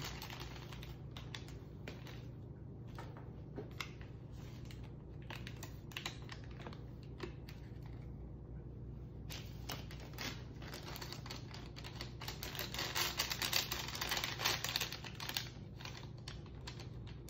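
Plastic and paper IV-supply packages being opened and handled: scattered crinkles and clicks, thickest for a few seconds past the middle, over a low steady hum.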